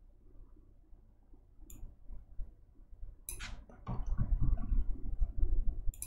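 Faint clicks and taps of a computer keyboard and mouse over a low room hum, busier in the second half as code is typed.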